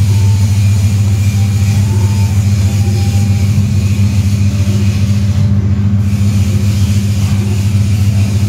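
Steady low machine hum, like a motor running without a break, with a deep drone and a fainter note an octave above it.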